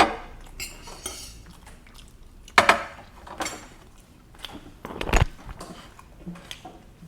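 Eating utensils clinking and scraping against a plate, in scattered sharp clinks, with a duller knock about five seconds in.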